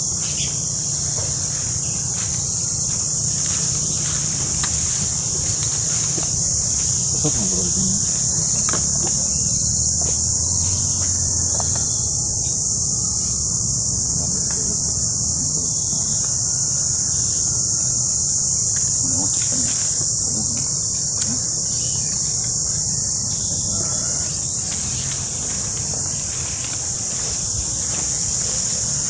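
A steady, high-pitched insect chorus that never lets up, over a low rumble.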